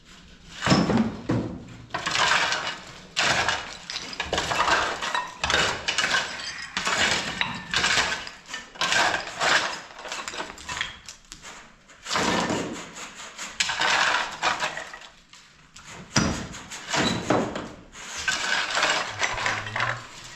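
Irregular clattering and knocking of hard objects being handled, in bursts of a second or two with brief pauses.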